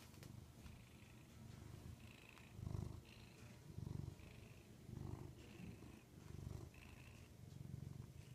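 Domestic cat purring close to the microphone, the low purr swelling and easing with each breath about once a second.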